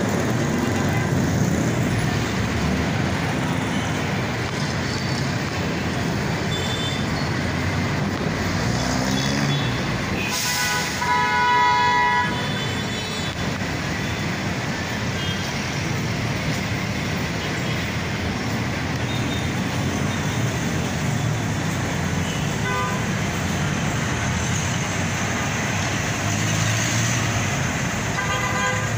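Steady noise of dense, slow city traffic: many engines running under a crowded road, with a vehicle horn sounding loudly for about two seconds roughly ten seconds in. A couple of shorter, fainter horn beeps come later, one near the end.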